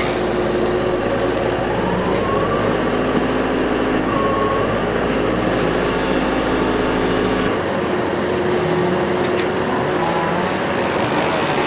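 Engine running steadily, its pitch rising briefly about two seconds in; a low hum drops away about seven and a half seconds in.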